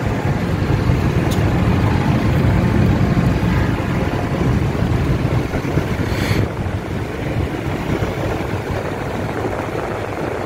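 Diesel farm tractor engines running steadily as a line of tractors gathers. There is a short hiss about six seconds in.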